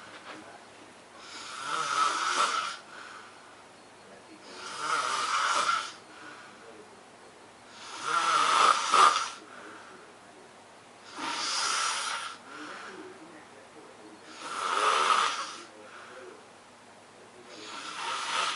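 A person snoring in sleep, taking a slow, regular breath about every three seconds; each snore is a rasping, hissy breath lasting about a second, six in all.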